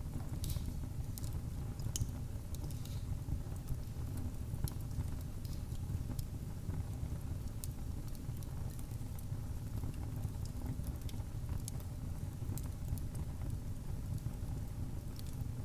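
Fire crackling in a fireplace: scattered sharp pops and snaps, a few each second, over a steady low rumble of the flames.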